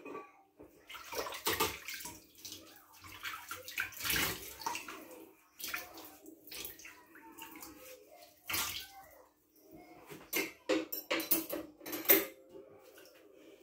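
Dishes being washed by hand in a stainless steel sink: water sloshing and splashing in irregular bursts as items are scrubbed with a sponge, with a few sharp clatters near the end.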